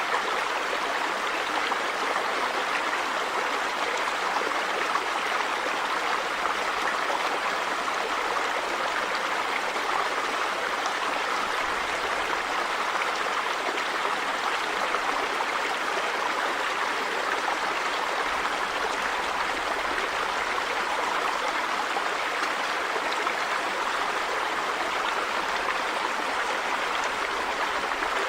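River water running over rocks: a steady rushing and babbling that holds an even level throughout.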